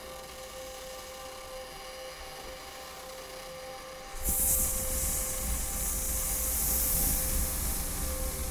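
Live experimental electronic music: a steady drone tone, joined suddenly about four seconds in by a loud layer of hissing noise with a low rumble beneath it.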